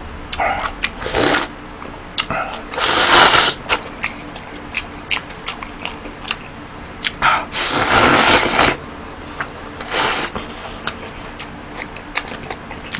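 Slurping of cold noodles and broth from a metal bowl held to the mouth: four loud slurps of about a second each, the strongest about three and eight seconds in, with light clicks of chopsticks and bowl between them.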